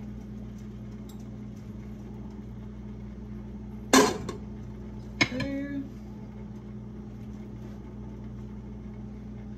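Kitchen dishware clattering as cut strawberries are scooped with a measuring cup into a pot. There is a sharp knock about four seconds in and a second, shorter one about a second later, over a steady low hum.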